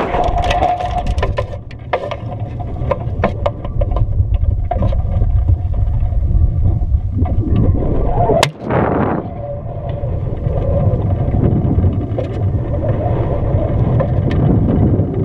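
Wind buffeting the microphone of a rocket's onboard camera during descent: a steady low rumble with scattered clicks and rattles from the airframe. A single sharp knock comes about eight and a half seconds in.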